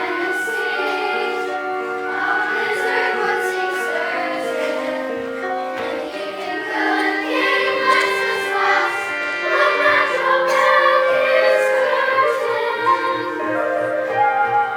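A choir singing a song over musical accompaniment, with many voices holding and moving between notes.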